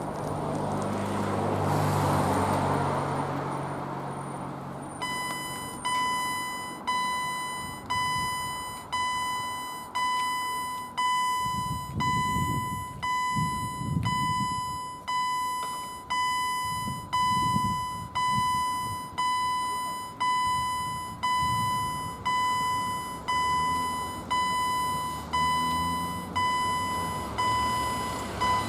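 Level crossing warning bell ringing about once a second, each stroke sharp and then fading: the signal that a train is approaching and the barriers are about to lower. It starts about five seconds in, after a motor vehicle passes close by.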